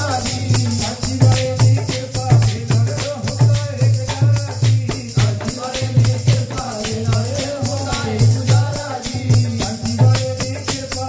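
Men singing a devotional hymn into microphones, with a low drum beat about twice a second and a steady jingling rattle of hand percussion.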